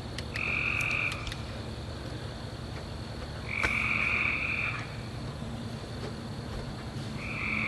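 A frog calling with a buzzy trill three times, each call about a second long and some three seconds apart, over steady night-time background noise.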